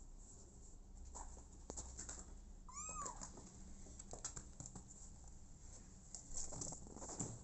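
A kitten gives one short, high meow that rises and falls in pitch, about three seconds in. Around it are soft rustling and scuffling sounds, with a few louder knocks near the end.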